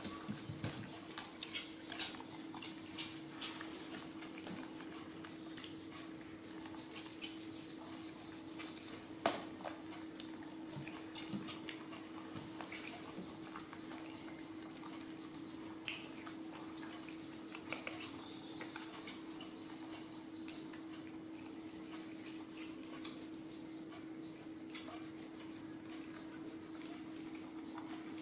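Steady low hum with scattered faint clicks and taps from baby macaques handling and eating jackfruit and a knife peeling a fruit; one sharper click about nine seconds in.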